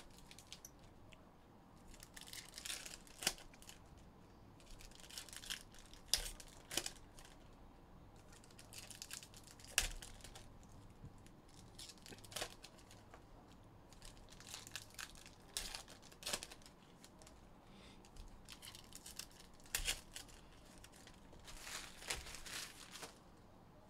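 Foil trading-card pack wrappers being torn open and crinkled in the hands, in short irregular bursts with sharp crackles.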